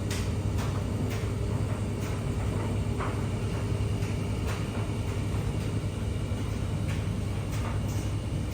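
Miele W1 front-loading washing machine running, a steady low motor hum and rumble with short irregular knocks from inside the drum.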